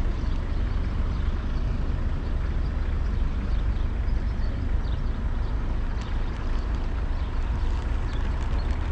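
Steady low outdoor rumble, with faint high chirps around the middle and a few light clicks near the end.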